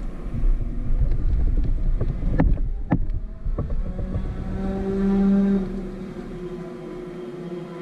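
Onboard sound of a superkart's 250 cc two-stroke engine with heavy wind noise on the microphone. A quick series of sharp knocks comes in the first few seconds, then the engine settles to a steady, lower note.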